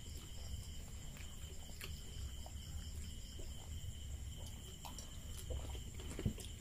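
Quiet eating sounds: small clicks and cracks as crisp puri (fuchka) shells are pressed open by hand, with a sharper crack near the end. Underneath are a steady low hum and a continuous high-pitched insect trill.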